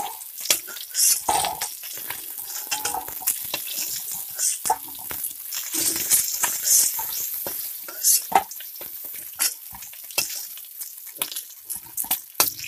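Pieces of snakehead (shol) fish sizzling in hot oil in an aluminium kadai, while a steel spatula scrapes and knocks against the pan, lifting the fried pieces out one by one.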